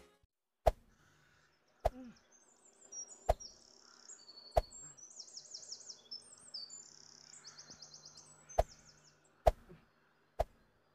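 Badminton rackets hitting a shuttlecock back and forth in a rally: sharp single pocks about once every second or so, seven in all with a pause in the middle. Birds chirp in quick high trills in the background.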